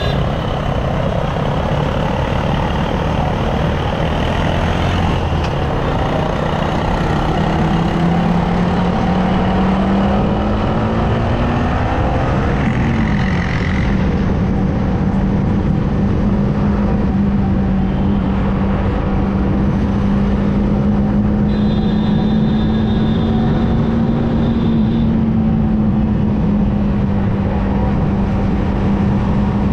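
Yamaha R15M's 155 cc single-cylinder engine running under way, its pitch climbing steadily for about twelve seconds, dipping briefly at a gear change, then holding steady at cruising speed, with road and wind noise.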